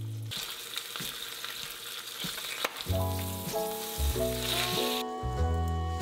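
Squid frying in butter in a stainless steel tray, a steady sizzle with small crackles that cuts off about a second before the end. Background music with a bass line comes in about halfway through.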